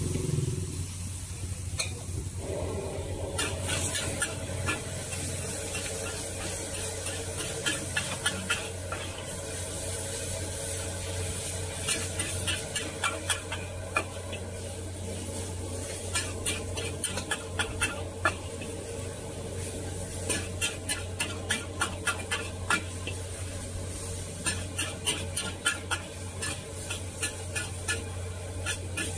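A metal spatula scrapes and clanks against a large wok while rice vermicelli and bean sprouts are stir-fried, in repeated quick runs of strokes, busiest in the second half. A steady sizzle and a low hum run beneath.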